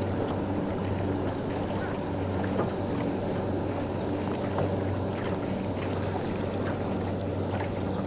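Steady low hum with evenly spaced overtones from the boat, typical of a bow-mounted electric trolling motor holding position, with faint scattered ticks over it.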